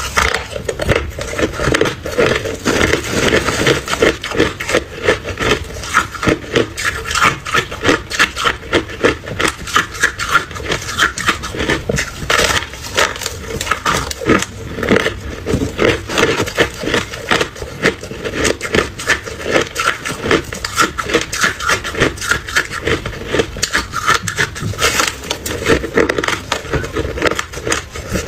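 Ice being chewed close to the microphone: loud, rapid crunching and cracking in a steady chewing rhythm.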